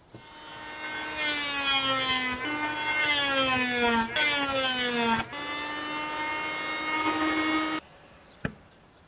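Electric hand planer whining as it runs up to speed. Its pitch sags three times as a thin wood strip is fed across the cutter, and recovers between passes. The sound stops abruptly near the end, followed by a single sharp knock.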